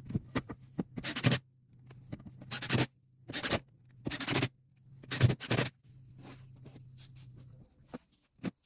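Repeated scraping strokes of a tool over drywall, about five strokes half a second or so long, with a steady low hum underneath that stops near the end.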